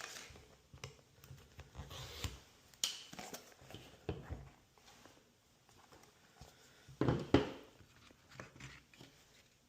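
Hands handling cardboard and paper packaging: scattered soft rustles, taps and clicks, with a louder rustle about seven seconds in.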